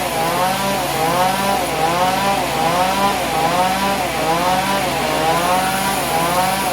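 Powered sawmill saw running through wood, its pitch rising and falling in a regular cycle about every three-quarters of a second.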